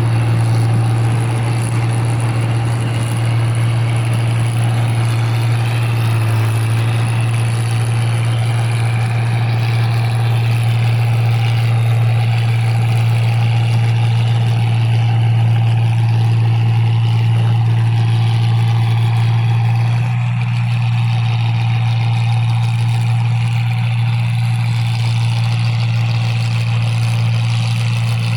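New Holland 1545 combine harvester running steadily while harvesting rice: a loud, constant engine drone with a strong low hum, easing slightly about two-thirds of the way through.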